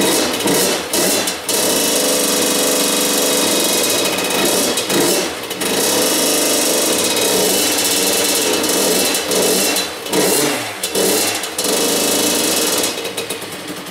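Freshly rebuilt Honda CR85R two-stroke single-cylinder engine running and being blipped, its revs rising and sagging several times. The idle is set too low after the carburettor rebuild, the owner thinks, so it won't hold a steady idle on its own. It cuts off at the very end.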